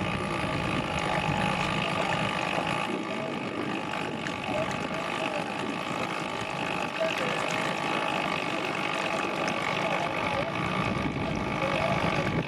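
Umpire's motorboat engine running steadily under way, with wind and water noise.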